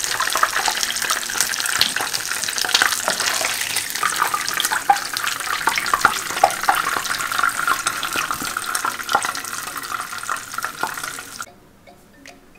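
Pişi dough pieces deep-frying in a pan of hot oil: a dense sizzle full of small crackles and pops, which cuts off suddenly near the end.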